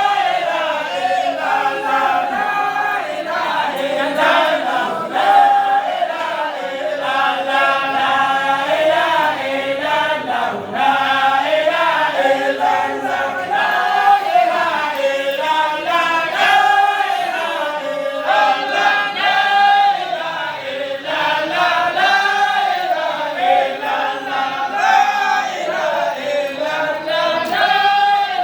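A group of voices chanting a devotional praise song together in one continuous melodic line, without any pause.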